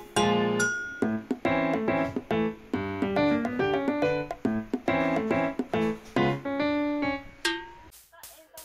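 Background music: a melody of short, quickly repeated keyboard notes, which thins out and fades about a second before the end.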